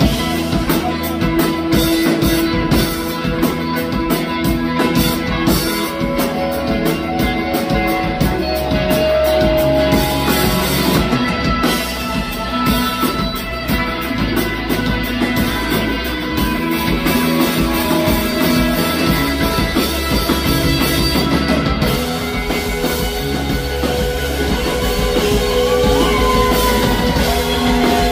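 Live rock band playing: two Stratocaster-style electric guitars, electric bass and a drum kit with cymbals going steadily.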